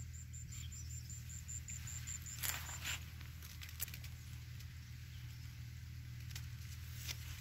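Faint rustling of sugarcane leaves and soft footsteps on dry soil over a low steady hum. For the first three seconds a rapid series of short high chirps, about five a second, sounds in the field.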